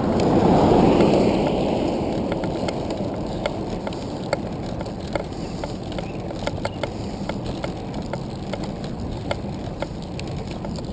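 Handcycle rolling along a road, heard from a camera mounted on the bike: steady wind and tyre noise with frequent small irregular clicks and rattles. A louder whoosh of noise rises and falls in the first two seconds.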